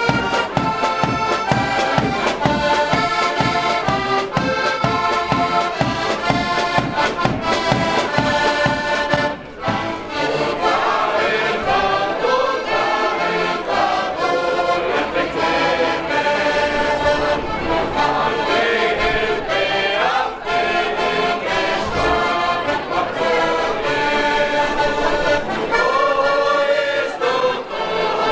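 Several heligonkas (Slovak diatonic button accordions) playing a lively folk tune, with a drum keeping a steady beat. About ten seconds in, the music breaks briefly and a group of men starts singing along with the accordions.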